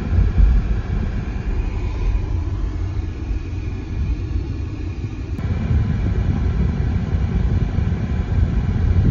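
Steady low road and tyre rumble heard inside the cabin of a moving 2018 Kia Soul EV, an electric car with no engine note. The rumble shifts abruptly a little past halfway.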